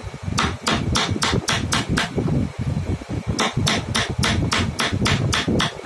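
Wooden mallet striking a carving chisel into a wooden piece: two runs of quick, even blows, about three to four a second, with a pause of a second or so between them. A steady low hum runs underneath.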